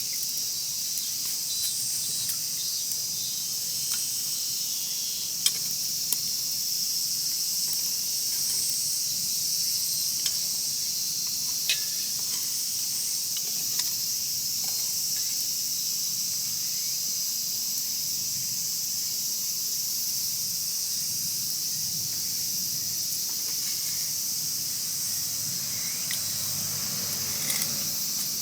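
Steady high chorus of crickets and other insects at dusk, with a wood fire crackling underneath and a few sharp pops from the burning wood.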